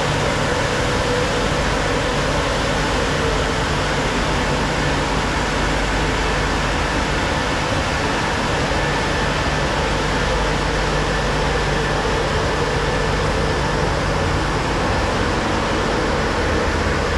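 Automatic car wash's drying blowers running: a steady, even rush of air with a faint hum under it.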